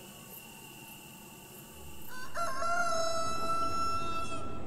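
A rooster crows once: a single long call of about two seconds that begins about two seconds in.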